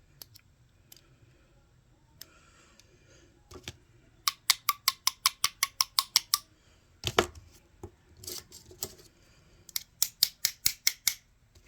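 Two quick runs of small, sharp clicks, about seven a second, with a single louder knock between them. These are small gears and a bearing being handled and seated in an RC crawler's portal axle housing.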